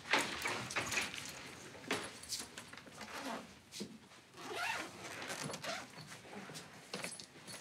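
A zipped bag being opened and rummaged through: zip pulls and rustling of things being lifted out, in irregular bursts.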